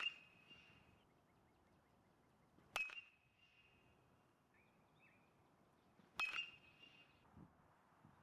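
A baseball struck twice by a metal bat, about three and a half seconds apart. Each hit is a sharp crack followed by a ringing ping that fades within about a second.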